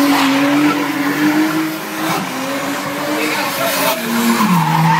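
Nissan Skyline engine held at high revs during a burnout, with tyres squealing against the pavement; the revs drop about four and a half seconds in.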